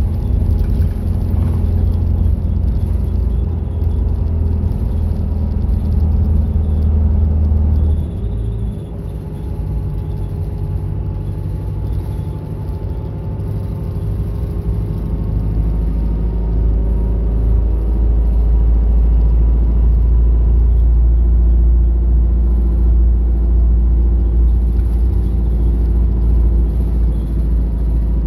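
Route bus running, heard from inside the cabin: a steady engine drone over road rumble. About eight seconds in the engine note drops and the sound eases, then it grows louder again over the next several seconds and holds.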